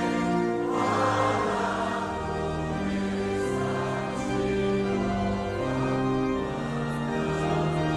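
Congregation singing a Portuguese hymn together, many voices on long held notes that change about once a second.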